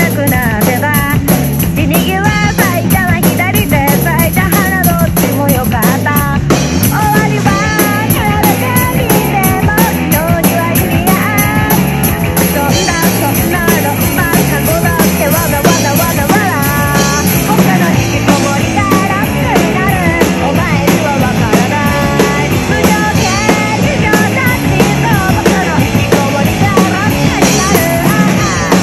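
A recorded rock song with sung vocals, played along to live on a TAMA acoustic drum kit: a steady beat of kick, snare and cymbals under the singing.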